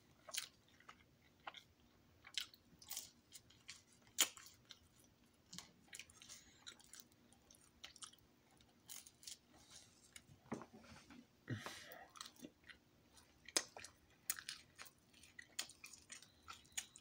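A person chewing and biting pizza, with irregular mouth clicks and soft crunches.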